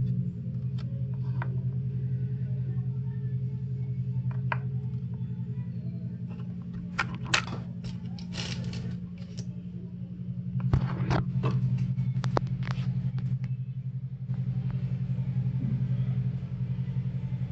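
A steady low hum throughout, with the clicks and rustles of paper trading cards being handled and laid down, in clusters through the middle.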